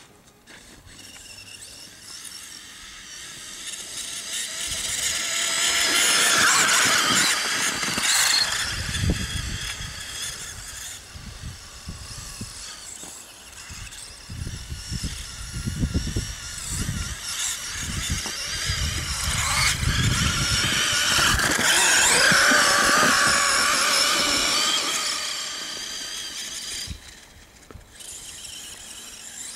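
E-Maxx brushless RC monster truck's electric motor and drivetrain whining, rising and falling in pitch with the throttle. It is loudest twice, about six seconds in and again around twenty-two seconds, with low thuds in between as the truck ploughs through deep snow.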